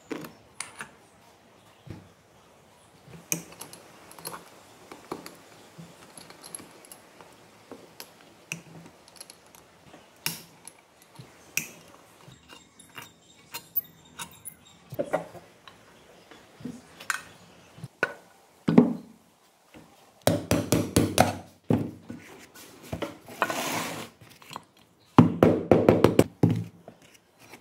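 Metal hand tools clinking and knocking against the aluminium crankcase of a Honda Dio 50cc two-stroke engine as it is dismantled. At first there are scattered single knocks, then two runs of rapid metallic clattering in the last third.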